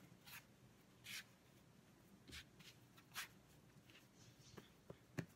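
Faint, soft rubbing and pressing of hands kneading cinnamon-roll dough, a few irregular strokes about a second apart, coming quicker near the end.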